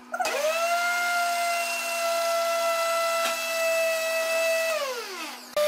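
Electric countertop blender beating egg whites: the motor starts with a quickly rising whine, runs steadily for about four and a half seconds, then is switched off and winds down in a falling whine. It is switched on again right at the end.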